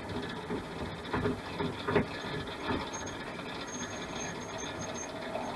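SIP 01936 lathe running at its slowest speed while a drill bit bores through the centre of an acrylic pen blank, with a few short scraping bursts in the first two seconds.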